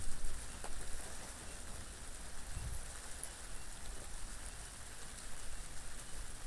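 Steady rain falling, with a brief low rumble of wind about two and a half seconds in.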